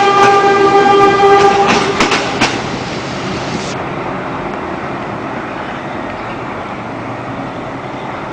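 Philippine National Railways train horn sounding one long single-note blast that cuts off about two seconds in. A few sharp wheel clicks follow, then the steady running noise of the passing train.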